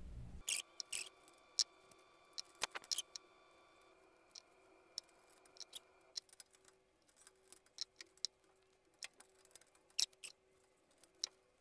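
Faint, sharp clicks and ticks, scattered irregularly, from hands handling small thermostat wires and fitting them onto a furnace control board's terminal strip.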